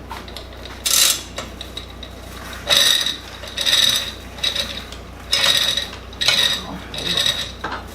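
A hoist ratcheting in about six short bursts of about half a second each, with a metallic ring, as the mill head is let down.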